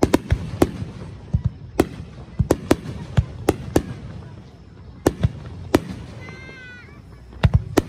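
Aerial firework shells bursting overhead in a rapid, irregular series of sharp bangs, with a low rumble between them, clustering toward the start and again near the end.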